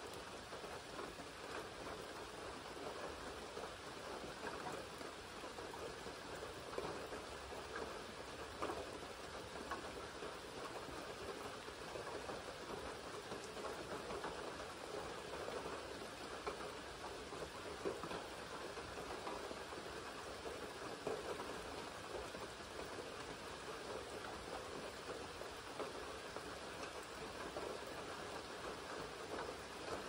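Steady rain falling on lake water and surrounding leaves. A few single drops land louder and closer now and then.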